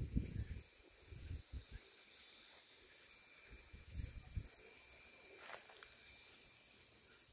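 Faint steady high-pitched hiss in the open air, with a few irregular low rumbles.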